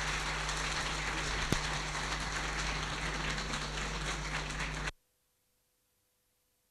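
Audience applauding in a hall, a dense steady clapping that cuts off suddenly about five seconds in.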